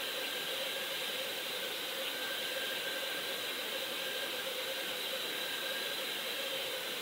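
Steady hiss of water rushing past an underwater camera towed behind a trolling boat, with a faint steady hum under it.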